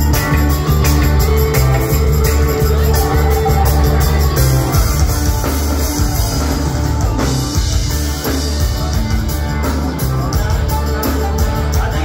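A live band playing loud amplified music, with a heavy bass and drum low end under electric guitars and keyboards.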